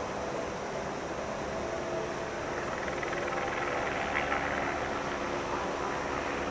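Steady drone of helicopters hovering overhead, swelling slightly about four seconds in.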